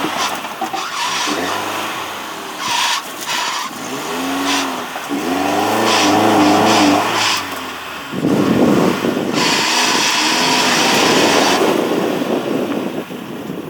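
Toyota 4Runner's engine revving up and down repeatedly while crawling an off-road trail. About eight seconds in, a loud rushing noise takes over for a few seconds before easing off near the end.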